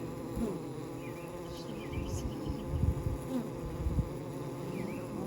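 Honeybees buzzing at a hive entrance, a steady hum of many bees, with a few low thumps in the middle.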